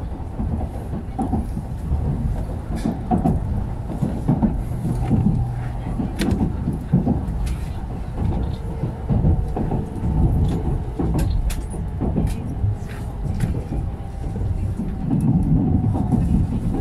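Cabin running noise of a 700 series Shinkansen passenger car at speed: a steady low rumble with scattered sharp clicks.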